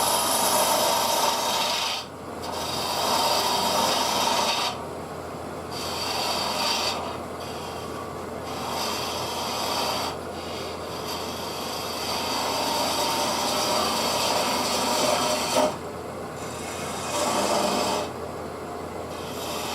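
A maple burl bowl spinning on a wood lathe, with a turning tool rasping against the wood in repeated passes of a few seconds each and short breaks between them.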